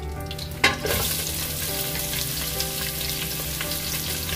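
Sliced onion dropped into hot oil and ghee with whole spices: a sudden burst of sizzle just under a second in, then steady sizzling frying.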